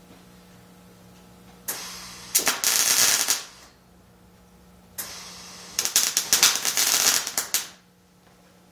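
Arc welding on thin 16-gauge steel sheet: two bursts of crackling, sizzling arc a few seconds apart, the second about twice as long as the first. Each begins with a softer hiss before the arc crackles.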